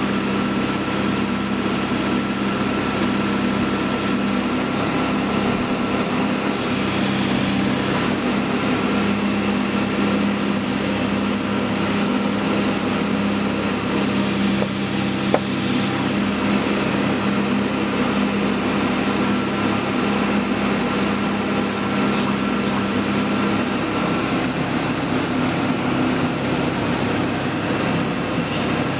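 Down-the-hole drill rig running and drilling, a steady loud machine noise with a low hum, heard from inside the operator's cab. A single sharp click about fifteen seconds in.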